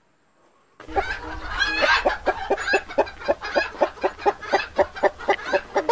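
A flock of hens clucking in quick short calls, about four a second, starting about a second in after a silent gap.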